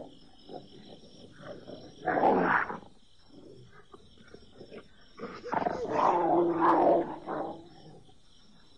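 Cartoon wolves snarling and growling in two bursts, a short one about two seconds in and a longer one from about five to seven seconds.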